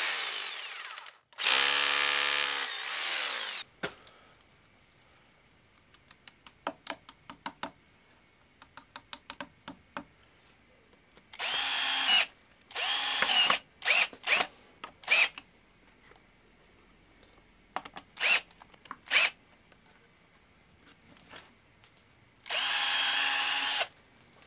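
Power drill run in a series of bursts: two longer runs near the start, a cluster of shorter ones in the middle, a couple of quick blips and one more longer run near the end. Between them come a run of light clicks.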